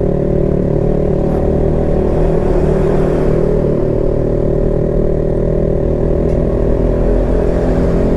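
Honda CB150X's single-cylinder engine running at steady revs under load while the bike climbs a rough mountain road, with a constant, even pitch.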